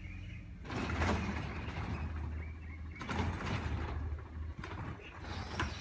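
Diesel refuse truck running while its lifting arm tips a trash cart into the hopper, with clattering about a second in and again around three seconds, and a sharp knock near the end.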